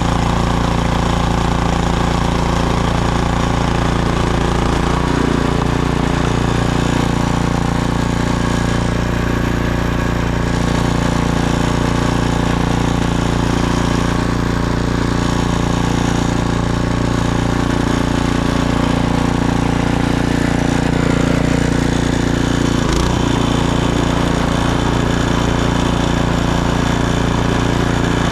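Snowblower engine running steadily at a constant speed, with brief shifts in its tone about five seconds in and again a little after twenty seconds.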